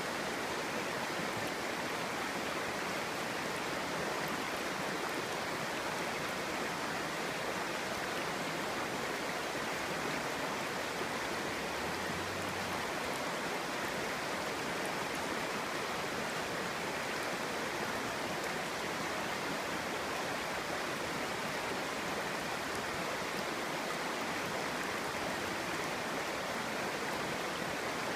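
Clear stream babbling and rushing steadily over rocks.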